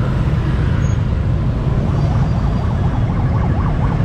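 An emergency-vehicle siren comes in about halfway through, warbling rapidly up and down, over a steady low rumble of road traffic.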